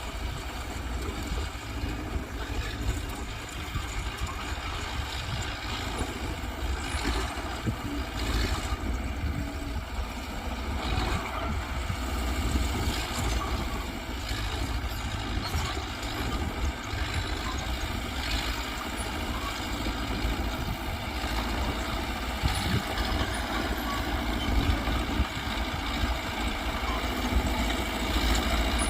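Mitsubishi BD2G crawler bulldozer's diesel engine running with a steady low rumble, growing a little louder near the end.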